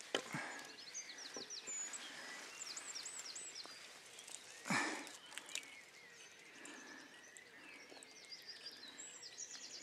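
Songbirds singing repeated quick, high chirping phrases over faint outdoor background noise. One louder swish, from the landing net moving in the water, comes about halfway through.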